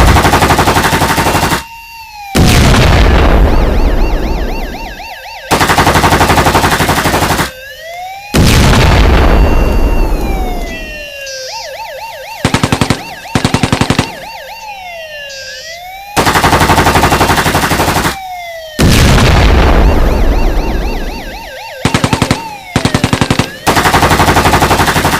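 Sound-effect gunfire: about ten loud bursts of rapid, machine-gun-style fire, some up to two seconds long and some short, with a wailing siren-like alarm tone sliding down and up in pitch between them.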